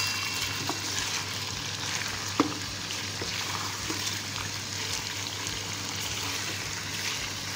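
Chicken pieces sizzling in hot oil in a karahi while a wooden spatula turns them. There are a few light clicks and one sharp knock about two and a half seconds in.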